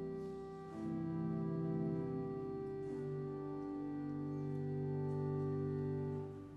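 Organ playing slow sustained chords that change a few times and die away near the end.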